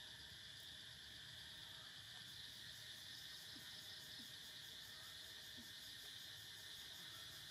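Faint, steady insect chorus: a continuous high trill that doesn't change.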